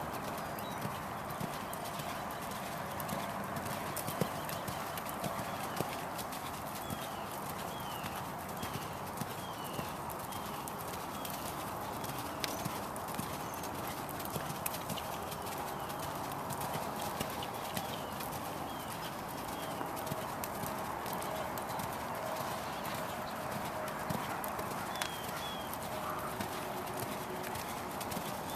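Hoofbeats of a horse loping under a rider on soft arena dirt, with a short high chirp repeating roughly every half second.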